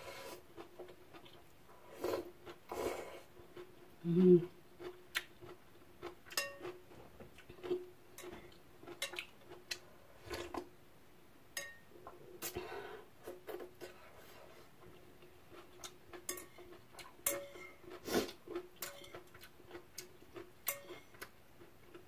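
A person eating ramyeon noodles from a bowl with chopsticks: brief slurps scattered through, with light clicks of the chopsticks against the bowl. A faint steady hum runs underneath.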